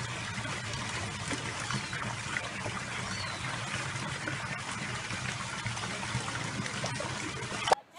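Water trickling and splashing steadily, with small scattered clicks; a sharp knock comes just before the sound cuts off near the end.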